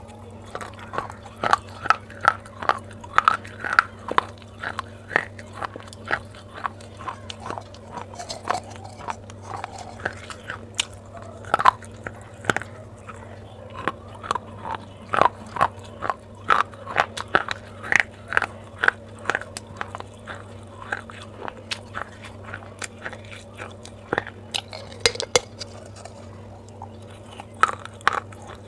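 Unglazed terracotta clay pot being bitten and chewed: a continuous run of sharp, gritty crunches, about one to two a second, with a short lull about three quarters of the way in. A faint steady low hum sits underneath.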